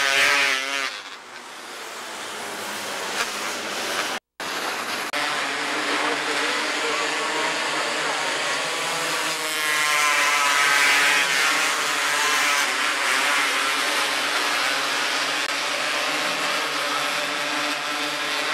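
Several 270cc micro sprint car engines racing on a dirt oval, the pitch rising and falling as cars pass, loudest as a pack goes by about ten seconds in. The sound drops out for a moment about four seconds in.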